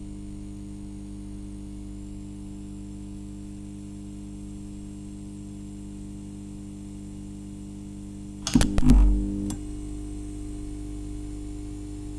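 A steady electrical hum made of several even tones. About eight and a half seconds in it is broken by a quick cluster of clicks and a low thump lasting about a second.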